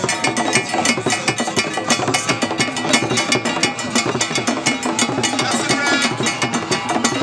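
Traditional drumming with quick, steady strokes of drums and a hard wooden or clapper-like percussion, over crowd voices.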